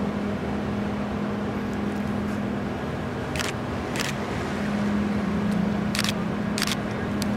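The MV Salish Orca ferry's engines hum steadily at the berth over the wash of water. Two pairs of sharp clacks sound, the clacks in each pair about half a second apart, the first pair near the middle and the second near the end.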